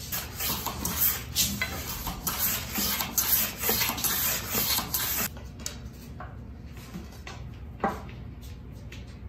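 Hand plane shaving a thin walnut strip in quick, short strokes, about two a second, for roughly the first five seconds. Then quieter, with a single sharp knock near the end.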